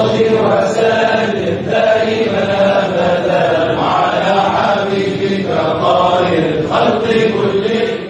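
A group of men chanting together in unison, a devotional Mawlid chant in praise of the Prophet, with long held notes that rise and fall.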